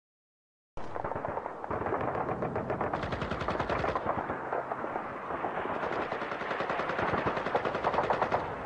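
Rapid machine-gun fire, a battle sound effect, starting abruptly about a second in and running on as dense, fast strings of shots.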